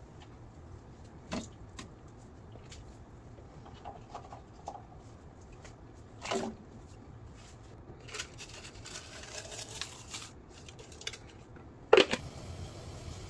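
Kitchen handling sounds: scattered light clicks and knocks, a stretch of rustling, and one sharp, loud knock near the end.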